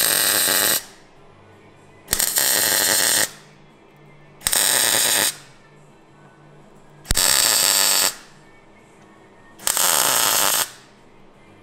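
MIG welder putting spot welds on a sheet-steel repair patch: five bursts of arc crackle, each about a second long, a couple of seconds apart.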